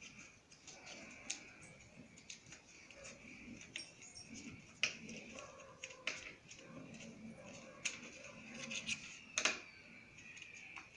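Paper being handled and folded around a pen: light rustling and crinkling with scattered sharp taps and clicks, the loudest about halfway through and near the end.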